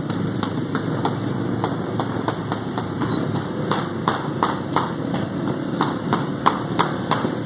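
Motorcycle engines running as a group rides along, heard from a moving bike as a steady rumble. Over it comes a run of sharp ticks, about three or four a second, clearest in the second half.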